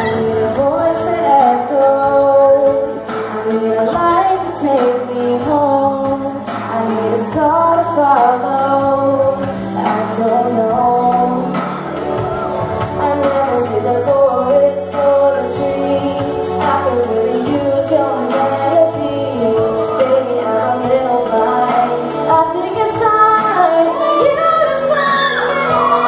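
A young woman singing a slow pop ballad solo into a microphone, over sustained instrumental accompaniment. Near the end, audience whoops and cheering start to come in.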